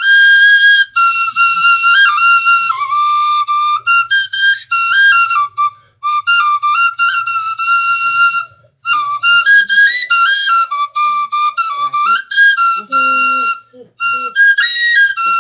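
Small bamboo flute, held upright and blown end-on, playing a lively high melody of short stepping notes with plenty of breath noise. The tune breaks off briefly a few times where the player takes a breath.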